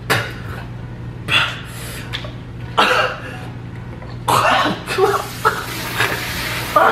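A man coughing and spitting in repeated bursts, with hard breathing between them, as he reacts to the burn of a chip made with Carolina Reaper and scorpion peppers.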